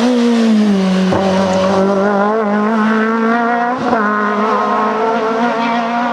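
Renault Clio Maxi rally car's four-cylinder engine running hard at high revs on a near-constant pitch, briefly breaking off about a second in and again about four seconds in.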